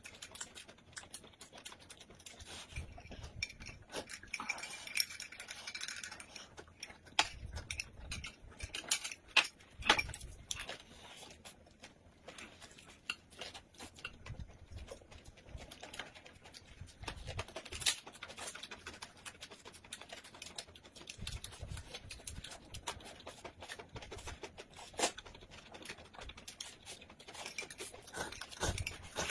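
Close-up eating sounds: chewing on rolled pancake wraps and sipping from a spoon, with scattered light clicks of chopsticks, spoon and dishes.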